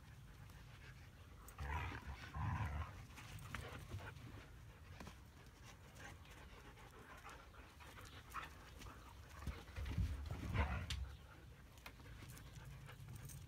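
Huskies panting, with a couple of louder bursts about two and ten seconds in.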